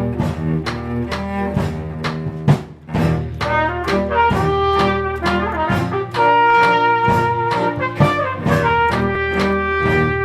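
Instrumental background music with a steady beat: brass and low bowed strings play held notes over regular percussive strikes. One sharper hit stands out about two and a half seconds in.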